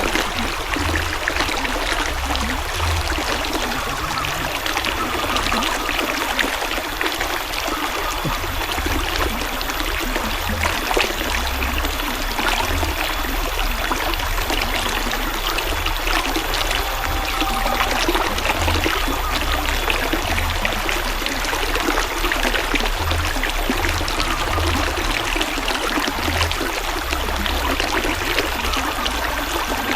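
River water flowing and trickling steadily over stones, a continuous babbling rush.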